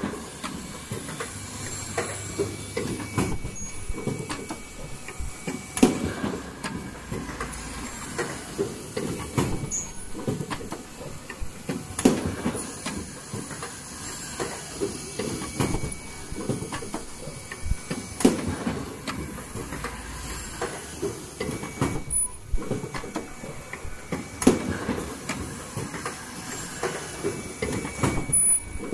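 Automatic N95 cup mask machine running through its cycle: steady mechanical clatter with sharp clicks and clacks, and louder bursts about every six to seven seconds as it repeats.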